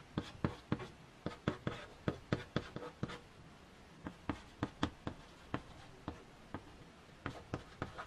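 Chalk writing on a chalkboard: a quick series of sharp taps and short scratchy strokes as Chinese characters and then pinyin letters are written, with a brief pause about three seconds in.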